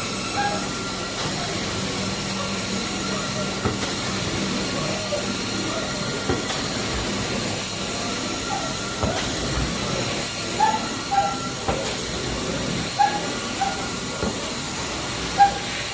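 Carpet-cleaning machine running with a steady rushing hiss, and short squeaks now and then, more of them in the second half.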